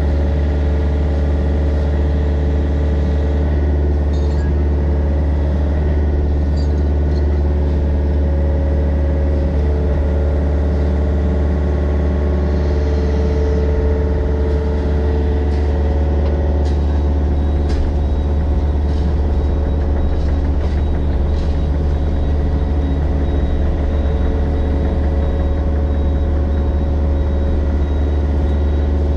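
Mini excavator's diesel engine running steadily, a loud low drone that shifts slightly in pitch partway through, with a few faint clicks.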